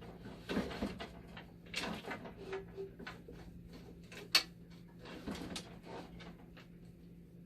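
Clicks, light knocks and scraping of a replacement power supply unit being handled and fitted into a dialysis machine, with one sharp click about four seconds in.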